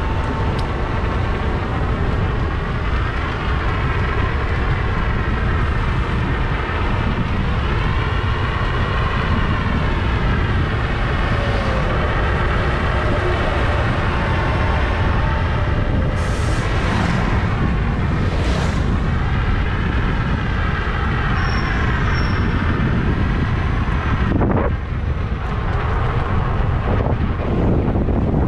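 Steady rush of wind on a bicycle-mounted camera's microphone while cycling, with a Jazz electric multiple-unit train running on the track alongside.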